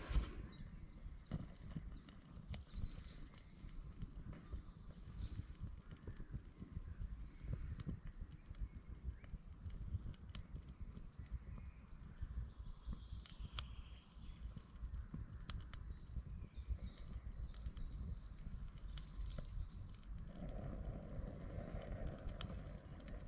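Small woodland birds singing: phrases of short, high, downward-sliding chirps repeated throughout, over a low rumble and scattered faint clicks. A soft rushing sound joins near the end.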